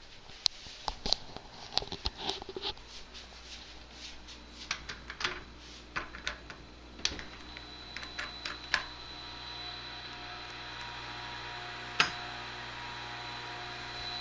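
Footsteps and sharp handling clicks, then a door opens about halfway through and the steady hum of an electric chainsaw chain grinder's motor comes in and keeps running, with one sharp click near the end.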